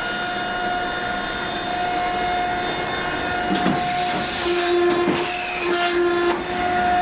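Automatic loader machinery of a Mark 45 Mod 2 5-inch naval gun running with a steady whine, a lower hum joining about halfway through, and a few metallic clanks and knocks in the middle.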